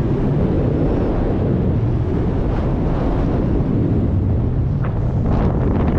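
Wind buffeting the microphone: a steady, loud low rumble, with a few sharper crackles near the end.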